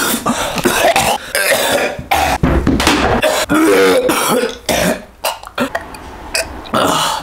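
A young man coughing and gagging in a rapid string of harsh, sudden bursts, with short throaty voiced retches mixed in, in disgust at the taste of a flame-roasted chouriço.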